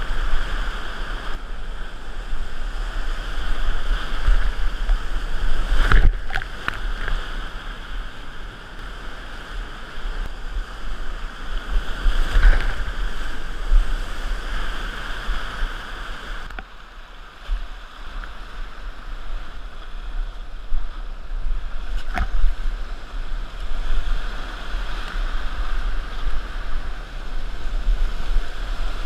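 Whitewater rapids rushing loudly around a kayak running a steep rapid, with splashing at the bow and paddle. Sharp splashing hits stand out three times, about six, twelve and twenty-two seconds in.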